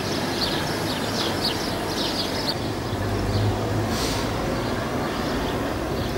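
Small birds chirping repeatedly in quick, short downward notes, mostly in the first half, over a steady outdoor hiss and rumble.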